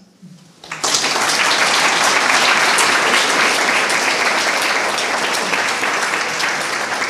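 Audience applauding, beginning abruptly about a second in and holding steady.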